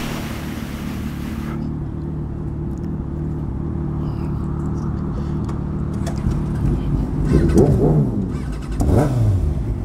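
Sport motorcycle's engine idling steadily, with the engine note swelling up and down twice in the last few seconds.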